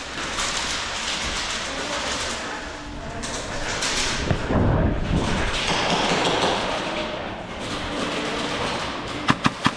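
Rumbling wind and handling noise on a body-mounted camera. Near the end comes a quick burst of airsoft gun shots, about four sharp cracks in half a second.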